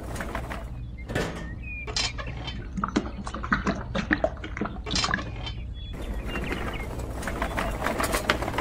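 Small irregular clinks and rattles of a miniature cement mixer and a metal toy wheelbarrow as wet cement pours from the tipped drum, over a steady low hum.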